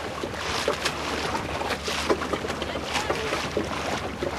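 Water sloshing and splashing against a small boat's hull as it moves through choppy water, in an irregular run of splashes.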